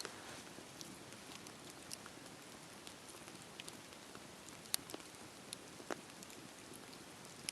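Wood fire burning with a steady hiss and scattered sharp crackles and pops, a couple of louder pops after about four and a half and six seconds.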